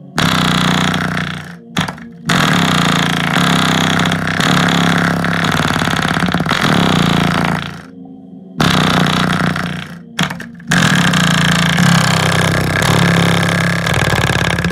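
A Samsung 6.5-inch subwoofer driven hard toward burnout, playing a bass-heavy track, loud and rough. The sound drops out briefly about two seconds in, again near eight seconds and once more near ten seconds.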